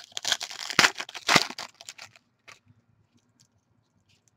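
Foil wrapper of a Panini Prizm basketball card pack being torn open and crinkled, with two loud rips less than a second apart. After that it goes quiet apart from a few faint clicks as the cards come out.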